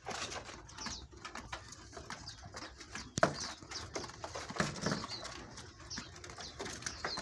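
Many caged birds chirping and twittering in short, scattered calls, with a few low cooing calls about three seconds in and again around five seconds.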